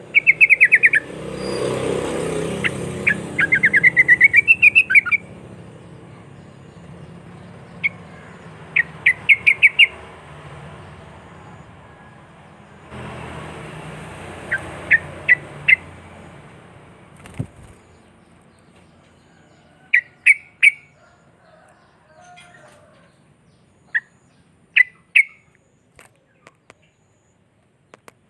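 Yellow-vented bulbul (trucuk) singing in quick strings of sharp, repeated notes, several short runs separated by pauses, over a steady background noise in places.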